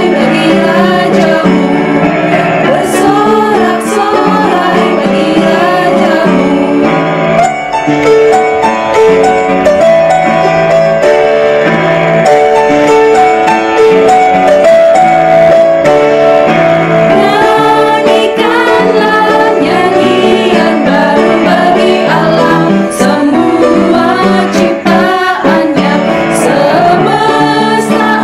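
Women singing an Indonesian Christian praise song together over instrumental accompaniment.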